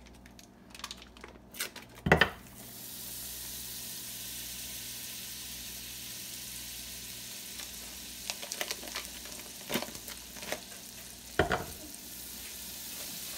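Sticks of butter dropped into a hot stainless steel pot, each landing with a thud, once about two seconds in and again near the end. In between, the melting butter sizzles with a steady hiss.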